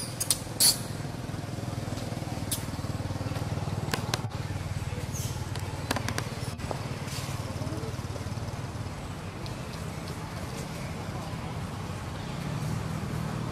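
A steady low rumble, like a motor or distant traffic, with sharp clicks: two loud ones within the first second and a few fainter ones later.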